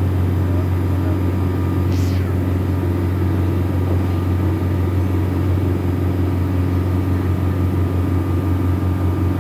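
An old boat's engine running steadily with a deep, even hum. A brief high-pitched sound cuts in about two seconds in.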